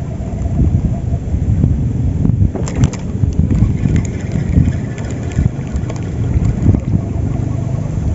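Wind buffeting the microphone, an irregular low rumble, with a few faint clicks about three seconds in.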